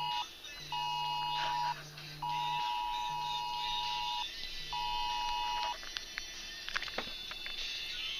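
Cell phone sounding the Wireless Emergency Alert attention signal, a harsh two-tone beep (853 and 960 Hz) in its long-short-short cadence, with a low vibration buzz pulsing alongside. The beeping stops a little under six seconds in, followed by a few clicks of handling.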